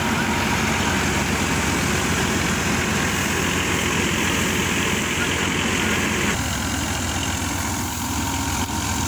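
Massey Ferguson 240 tractor's three-cylinder diesel engine running steadily under load, driving a wheat thresher. The steady hiss above the rumble drops away suddenly about six seconds in.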